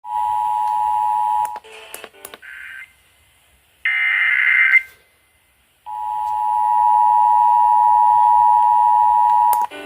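Emergency Alert System tones over FM radio: the steady two-tone attention signal (853 and 960 Hz) ends about a second and a half in. Short bursts of SAME data screech follow, with the loudest just before the midpoint. After a brief silence the two-tone attention signal sounds again for about three and a half seconds. These tones open the monthly EAS test.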